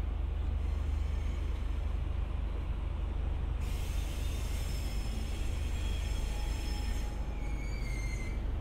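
E001 'Train Suite Shikishima' rolling slowly through a rail yard, with a steady low rumble. From about halfway, thin high-pitched wheel squeals rise above it and die away near the end.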